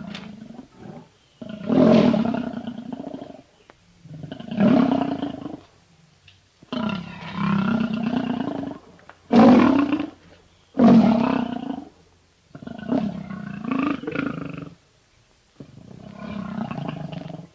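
A large wild animal roaring over and over, about eight roars each a second or two long, separated by short pauses.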